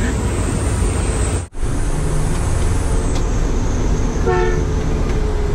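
Steady engine and road rumble of a truck driving on a wet road, with a short horn blast about four seconds in.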